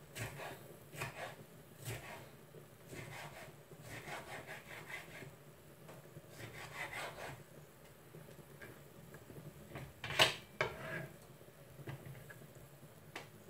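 Kitchen knife slicing tomato on a wooden cutting board: a run of short knocks and scrapes as the blade meets the board, with one sharper, louder knock about ten seconds in.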